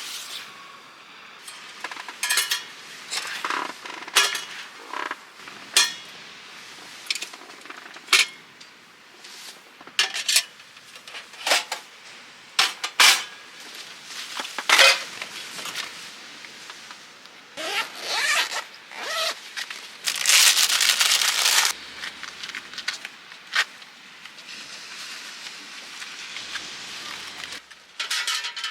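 Camping gear being handled: a string of short knocks, clinks and rustles, with a longer zipper-like pull about twenty seconds in.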